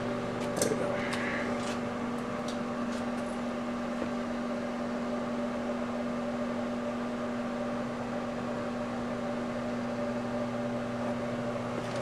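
Sharp Carousel microwave oven running with a CD burning inside: a steady hum from the oven, with a few light clicks in the first few seconds.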